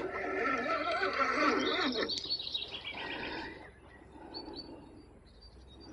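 Animal calls at a riverbank: busy wavering calls and bird chirps for the first couple of seconds, a quick run of high repeated notes, then only a few faint chirps.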